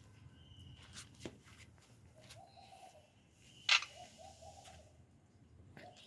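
A dove cooing in short, repeated, wavering phrases, with a sharp click a little past the middle.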